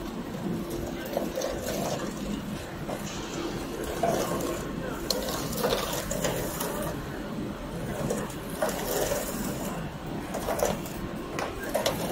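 Bakery production-line machinery running: a wire-mesh cooling conveyor carrying baked dry-cake slices, with a steady hum and irregular light clicks and rattles.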